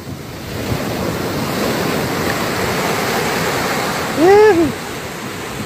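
Beach surf breaking and washing up over the sand, a steady rush of water. About four seconds in, a person gives one short shouted call, the loudest sound.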